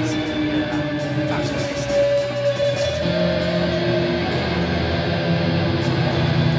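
Live band on stage with distorted electric guitars holding sustained, ringing chords that change to a new chord about three seconds in.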